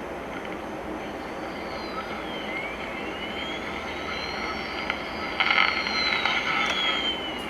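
1949 FADA model 855 AA5 tube radio hissing with static through its speaker, with thin whistles sliding up and down in pitch as the dial is tuned across the AM band. A burst of crackling comes in about five and a half seconds in. The set is just powered up with new filter capacitors and sounds a lot quieter than before.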